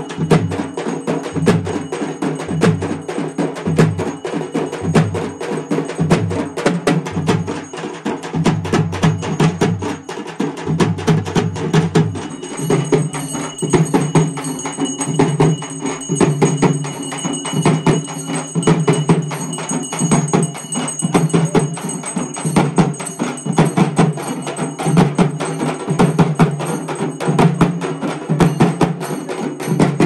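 Tamil ceremonial drumming: frame drums beaten in a fast, dense rhythm with metal percussion ringing over them, and the mix shifts about twelve seconds in.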